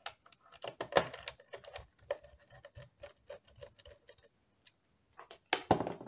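Hand screwdriver clicking and tapping as screws are driven into a laptop's plastic bottom panel, in irregular small ticks. Louder knocks come about a second in and again near the end.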